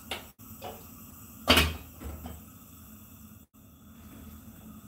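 A lid set down on a frying pan on a gas hob, one sharp clank about a second and a half in, with a few lighter knocks of kitchenware around it.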